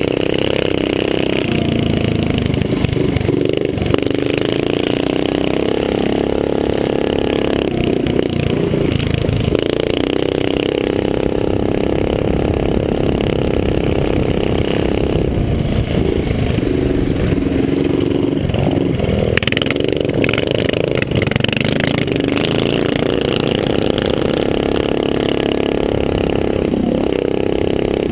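A small mini-bike engine racing at full throttle, its pitch climbing under acceleration and dropping briefly several times as the throttle is eased off. Wind rushes over the helmet-mounted microphone throughout.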